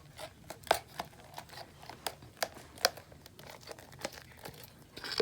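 Glue-and-shaving-cream slime being stirred in its container with Tide activator: irregular sticky clicks and squelches, a few a second, as the mixture starts to thicken into slime.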